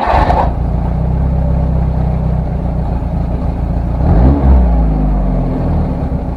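Car engine idling steadily, then revved once about four seconds in, the pitch rising and dropping back to idle.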